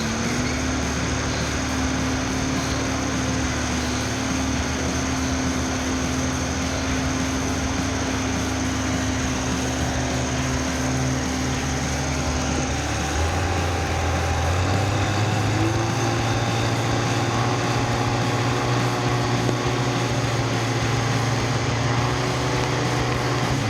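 Chainsaw engine running steadily at high speed. Its pitch drops about 13 seconds in, and a different steady engine note takes over from about 15 seconds.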